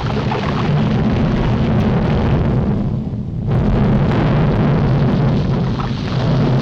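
Cartoon sound effect of a volcano erupting: a loud, continuous low rumble with crackling noise over it, which thins briefly about three seconds in.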